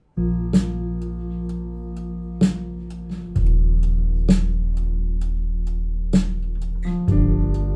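Recorded music played over Avalon Acoustics hi-fi loudspeakers: an instrumental passage of held guitar chords and bass with a drum hit about every two seconds. The bass drops deeper and grows louder about three and a half seconds in.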